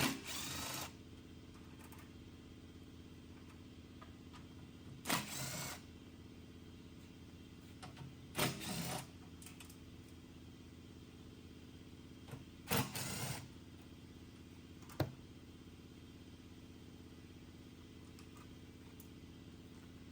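Four short bursts of hiss, each under a second and a few seconds apart, over a steady low hum, with a few light clicks.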